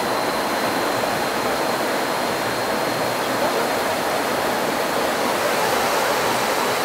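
Shallow river rushing and splashing over a stony bed in a steady, unbroken flow.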